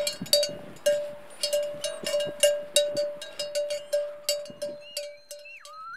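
A small bell, cowbell-like, struck again and again in an uneven rhythm, about three strikes a second, each ringing briefly and dying away toward the end. A short falling whistle-like tone sounds near the end.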